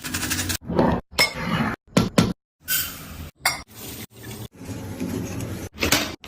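Kitchen utensils and dishes clinking and knocking in a series of short, separate bursts, with abrupt silences between them.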